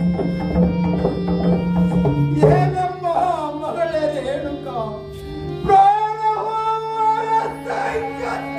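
Live devotional stage-drama music. Steady held instrumental notes and drum strokes play for the first two seconds. A singer's voice enters about two and a half seconds in with long, gliding, ornamented phrases, pausing briefly near the middle before a second held phrase.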